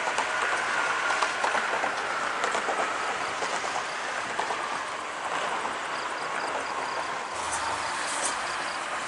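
Road traffic noise: buses and other vehicles driving past, a steady hiss with a faint steady tone and scattered small ticks. The sound changes character about seven seconds in.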